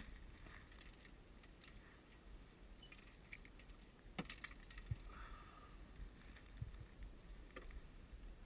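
Near silence, with a low steady rumble and a few faint, sharp clicks and taps.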